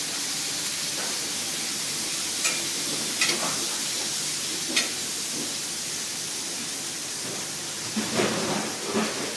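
Beef tenderloin steak sizzling steadily in a hot pan with butter, garlic, thyme and olive oil, with a few sharp clicks and clatter over the top.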